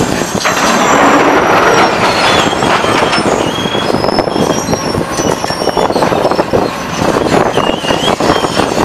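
Scrap metal being fed into a metal shredder: a dense, continuous clatter and grinding of steel on steel, with short high metallic squeals scattered through. It is loudest a second or two in, just after a grapple load drops into the infeed.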